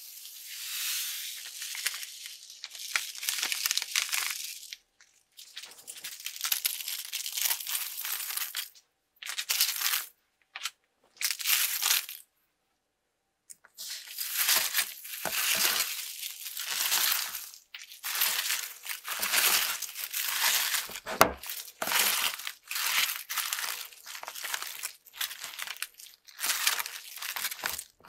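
Styrofoam beads pouring from a plastic bag onto slime in several hissing rushes. After a short pause, hands squish and crunch the slime mixed with styrofoam beads and cubes, a steady run of crackly squelches.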